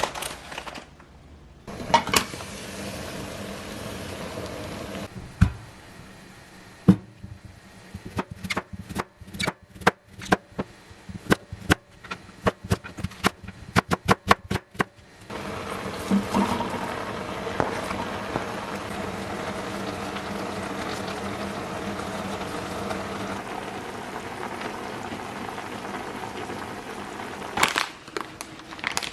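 Home kitchen cooking sounds: a steady hum, then several seconds of quick, irregular knocks, then a long steady hiss with a low hum beneath it, and a few more knocks near the end.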